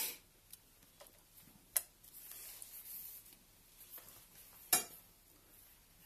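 A few sharp, isolated clicks of small hard objects being handled, with faint rustling between; one click about two seconds in and the loudest near the end.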